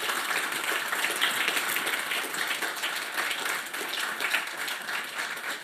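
Audience applauding, many hands clapping steadily and easing off slightly near the end.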